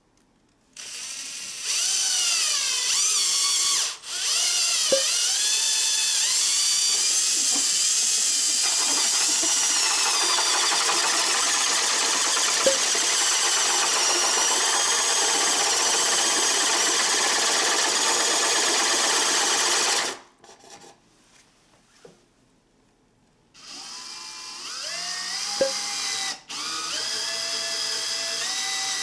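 Makita 18V cordless drill motor whining in drill mode, its pitch dipping and recovering. It stops about two-thirds of the way through, then starts again with the speed stepping up.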